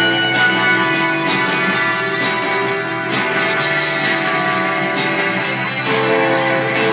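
Music: a guitar-led rock song with sustained chords and a steady beat.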